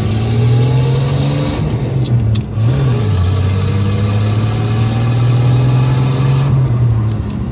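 Car engine accelerating through the gears of a manual transmission: the revs climb, break off at a gear change about two seconds in, climb again, and drop at another shift near the end.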